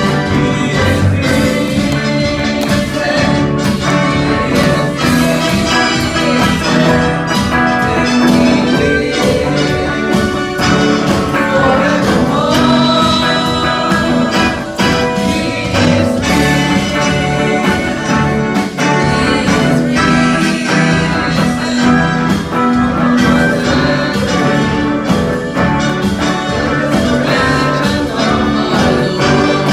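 Recorded music with a steady beat and what sounds like singing, in the manner of a gospel or worship song.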